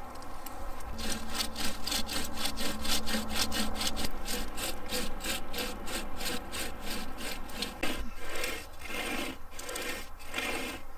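Manual pocket chain saw, a flexible cutting chain with a handle at each end, pulled back and forth through a fallen tree trunk. It makes a rasping stroke about three times a second, and the strokes become slower and longer near the end.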